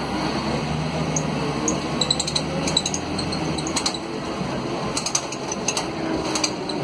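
Cabin sound of a Mercedes-Benz O500 UA articulated bus underway: its OM457LA six-cylinder diesel drones, the low tone dropping away about three seconds in and a rising tone coming back near the end. Loose interior fittings rattle and clink in short clusters, about two seconds in and again around five to six seconds in.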